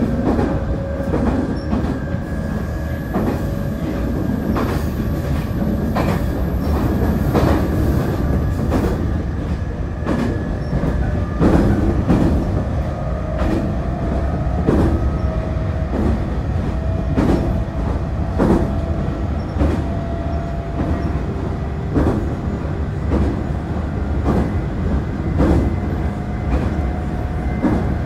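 Nankai 8300 series electric train running, with the whine of its Hitachi SiC VVVF inverter-driven traction motors slowly rising in pitch as the train gathers speed. Rumble of the wheels on the rails, with repeated clicks over rail joints about every second or so.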